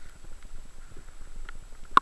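Underwater ambience: a low rumble of moving water with scattered faint, irregular clicks, and one sharp, loud click just before the end.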